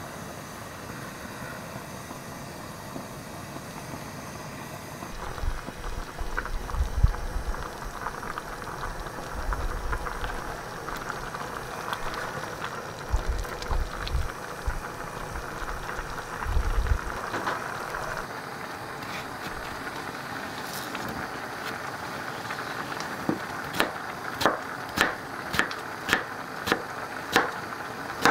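Cream soup simmering and bubbling in a saucepan while a spatula stirs it, with some low knocks. Near the end come a knife's even chopping strokes through cucumber onto a plastic cutting board, about two a second.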